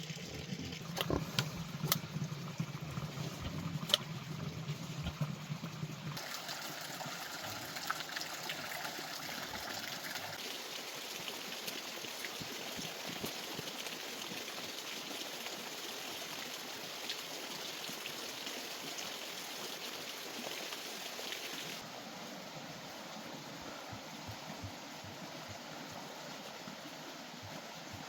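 Running water, a steady rushing like a stream. In the first few seconds a low hum sits beneath it, with a few sharp knocks.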